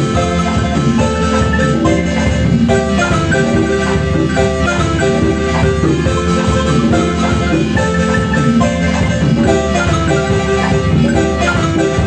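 Marimba music: a steady stream of quick, dense mallet notes.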